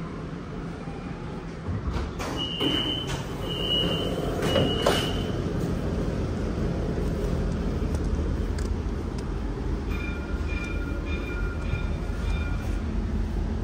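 Three high door-warning beeps about a second apart, with the doors knocking shut, as an Alstom Citadis tram closes up and pulls away. Its low running rumble then carries on steadily under a run of short beeps at two pitches near the end.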